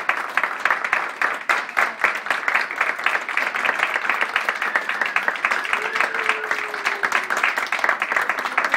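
Audience applauding, many hands clapping steadily together.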